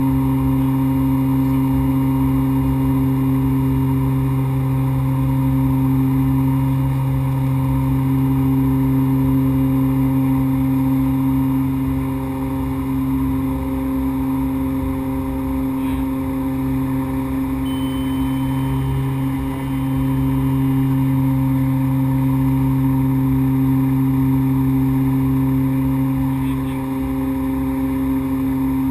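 Beechcraft King Air 100 twin turboprop in flight, heard from inside the cockpit: a steady, loud propeller and engine drone with a strong low hum.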